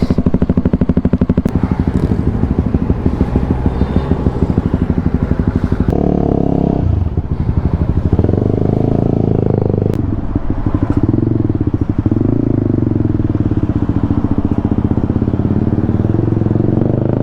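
Motorcycle engine running with a rapid, even pulse at low revs, then pulling away about six seconds in, its pitch rising and dipping briefly at gear changes before settling into a steady run.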